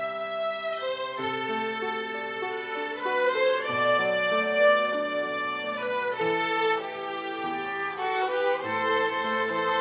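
Violin ensemble playing a slow melody in several parts, with long held notes.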